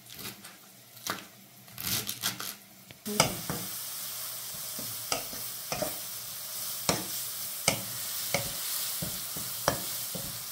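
Chopped leeks frying in hot oil in a pot. A steady sizzle starts suddenly about three seconds in, with a stirring utensil tapping against the pot every second or so. A few knocks of handling come before the sizzle starts.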